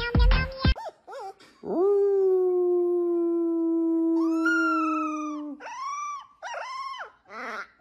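A man and a puppy howling together: the man holds one long, steady low howl, the puppy joins in partway through with a higher howl, then gives several short howls that rise and fall.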